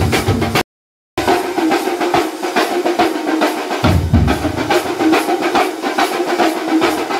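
A thambolam percussion troupe playing together: many large strapped drums and smaller drums beaten with sticks in a fast, dense rhythm, with cymbals. The sound cuts out completely for about half a second near the start, then the drumming goes on.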